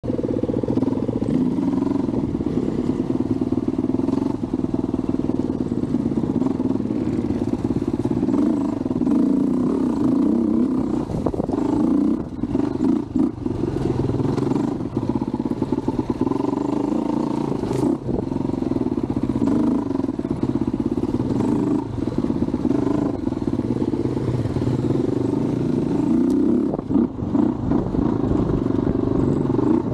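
Dirt bike engine running while riding, its pitch rising and falling with the throttle, with brief drops off the throttle around the middle and near the end.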